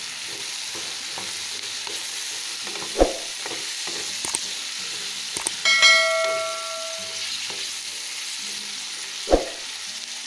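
Chopped long beans, spiny gourd and pointed gourd sizzling in oil with ground spices in a nonstick kadai while being stirred with a wooden spatula. There are two sharp knocks of the spatula against the pan, one about three seconds in and one near the end. A short metallic ring comes about halfway through.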